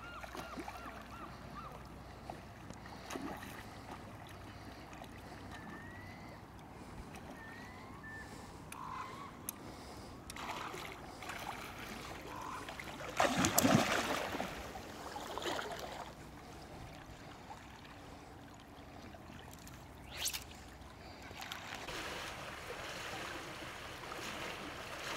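Shallow river water flowing steadily, with a loud splash a little past halfway through. Near the end come splashing steps of a wader moving through the water.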